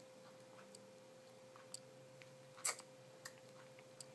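Quiet room with a steady faint hum and a handful of small, sharp clicks scattered through it, the loudest about two and a half seconds in.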